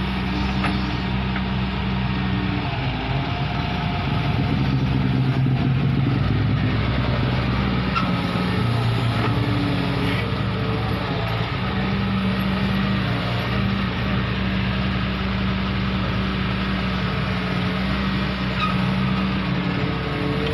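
Excavator's diesel engine running steadily at work, its note shifting up and down a few times as the load changes.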